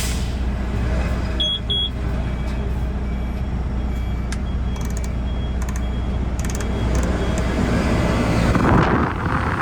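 Hitachi 0.7 m³-class excavator's diesel engine running steadily at idle, with two short high beeps about one and a half seconds in. Near the end the engine note drops away and a rushing noise rises.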